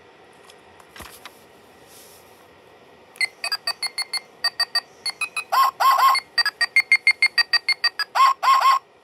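Green Teletubby-style toy mobile phone playing a fast electronic tune of short beeps, several a second, with a few longer warbling tones, starting about three seconds in after a button press. Before it there is faint handling, with a light click about a second in.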